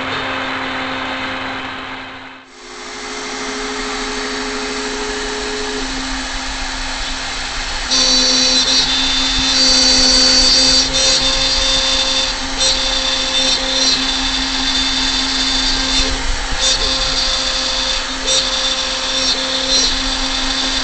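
CNC router spindle running with a steady whine. From about eight seconds in, the bit cuts into MDF and adds a louder, uneven high-pitched hiss.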